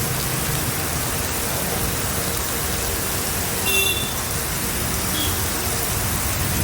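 Steady rain, an even hiss without let-up. A short high chirp cuts through it a little past halfway.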